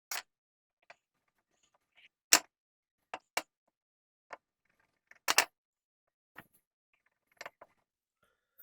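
Light scattered clicks and taps of a small metal pick and parts on a chainsaw carburetor being put back together, about nine in all, with the two loudest about two seconds and five seconds in.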